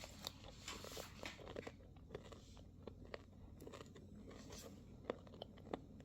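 Faint crunching and chewing of a crisp microwave-dried pork snack: scattered, irregular crisp cracks.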